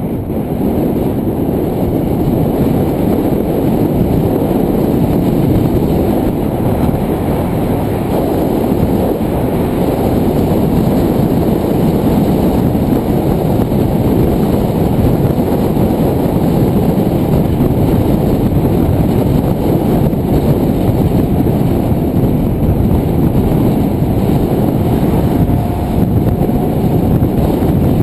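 Wind buffeting the microphone of a camera mounted on a moving bicycle: a loud, steady low rumble.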